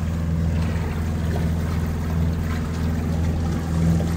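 Sailboat's engine running steadily under way, with water churning in the propeller wash at the stern.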